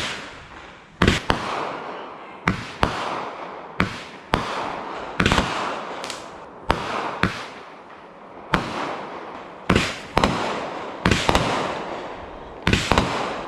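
A consumer multi-shot aerial firework firing shot after shot, with sharp bangs about every half-second to second, often in close pairs. Each bang is followed by a crackling hiss of sparks that fades away.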